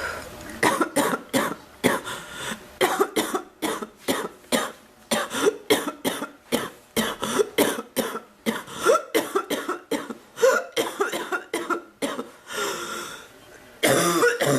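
A woman's prolonged coughing fit: harsh coughs in quick succession, about two a second, with a long breathy gasp near the end and a final loud cough. She is unwell, and her chest is bothering her.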